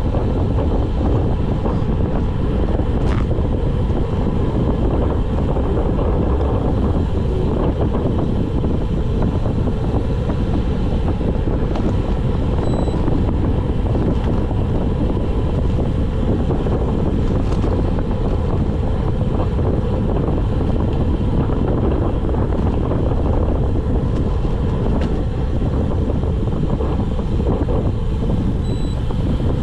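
Wind buffeting the microphone during a fast road-bike descent: a steady low rumble.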